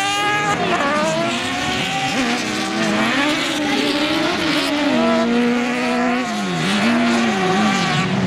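Several autocross buggy engines racing together on a dirt track, overlapping, their pitch climbing and dropping again and again as the drivers accelerate and lift off through the corners. One engine revs up sharply at the start.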